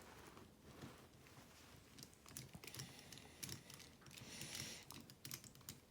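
Faint, irregular clicks and taps of small plastic and metal parts being handled: a wheel nut being fitted onto a 1/24-scale RC crawler's wheel.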